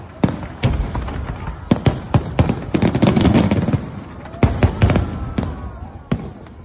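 Aerial fireworks going off: a rapid series of sharp shell bursts that thickens into a dense volley about two to three seconds in, comes back in a second cluster about four and a half seconds in, and thins out near the end.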